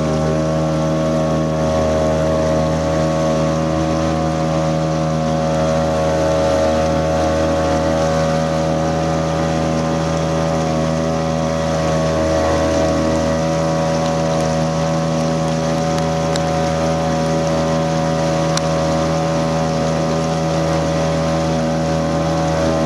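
Small boat's motor running at a steady cruising speed, an even drone that holds without change.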